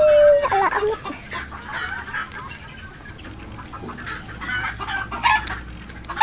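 Chickens clucking, with a drawn-out call that ends about half a second in, followed by many short clucks.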